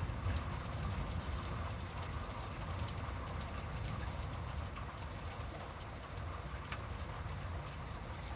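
Steady rain during a thunderstorm, with a constant low rumble underneath and a few faint drop ticks.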